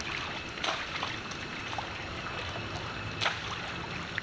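Macaques wading and splashing through a shallow rainwater puddle: a steady sloshing of water with two sharper splashes, one under a second in and one about three seconds in.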